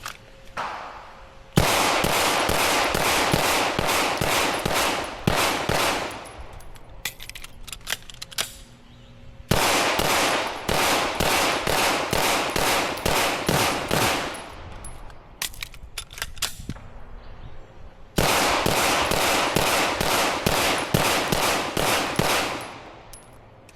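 A gun fired in three rapid strings of about ten shots each, roughly two shots a second: three 10-round magazines, 30 rounds. Small metallic clicks of magazine changes come in the pauses between strings.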